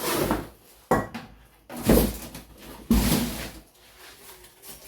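Box and packaging being handled and pulled open by hand: four short bursts of rustling and knocking, the one about a second in a sharp knock.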